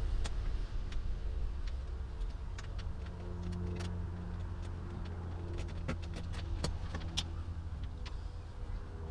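Scattered light clicks and clinks of an Allen key and fasteners as a motorcycle seat is unbolted and lifted off, over a steady low hum.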